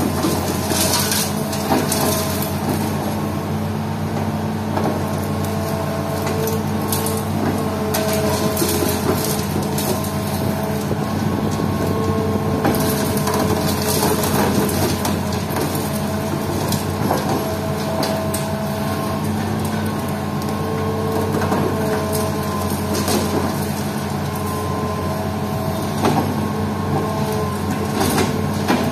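Hitachi Zaxis excavator's diesel engine running steadily under load, with a hydraulic whine that comes and goes, while its hydraulic pulverizer crushes brick and concrete rubble in irregular cracks and crunches.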